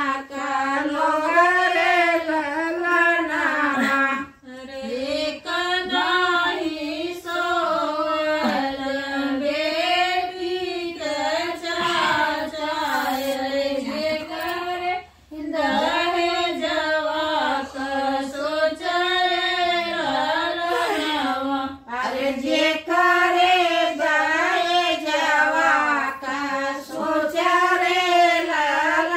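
Women singing a North Indian folk wedding song (shaadi geet) in a wavering, melismatic line without instruments. There are brief breaks for breath between verses, about 4, 15 and 22 seconds in.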